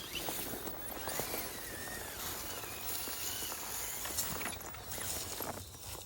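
RC crawler working its way over rough, rocky ground: scattered small clicks and crunches from its tyres on stones and dirt, with a faint wavering high tone now and then.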